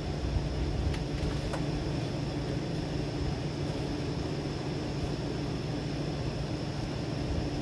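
Strong thunderstorm wind blowing steadily, a low rumbling rush with an even hiss above it, and a couple of faint ticks about a second in.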